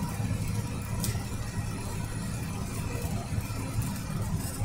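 Steady drone of a vehicle at highway speed on a wet road, heard from inside the cab: a low engine hum mixed with tyre and road noise. There is a single brief click about a second in.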